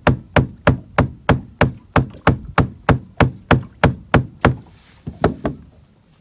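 A rapid run of evenly spaced sharp knocks, about three a second, that stops about four and a half seconds in, with two more knocks shortly after.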